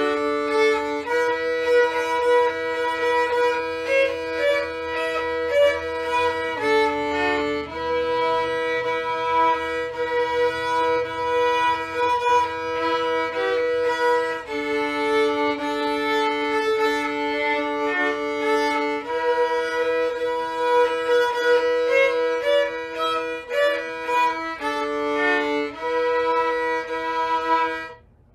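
Violin duet: two violins bowing slow, sustained notes that change every second or two, often sounding two pitches together.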